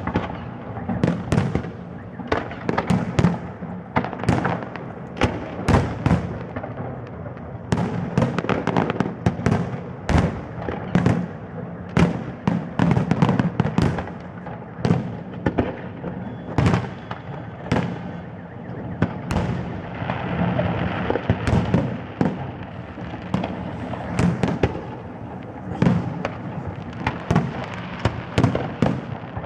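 Fireworks display: aerial shells bursting in quick succession, with sharp bangs several a second over a continuous low rumble.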